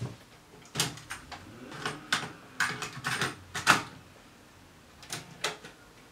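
A quick run of sharp clicks and clunks from a hi-fi cassette deck's buttons and tape mechanism as a cassette is set going, then two more clicks about five seconds in.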